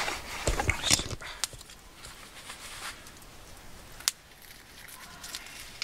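A few metal clicks and knocks from a wire grilling basket and tongs handled as a grilled trout is lifted off it. The knocks are busiest in the first second, with single sharp clicks about a second and a half in and about four seconds in.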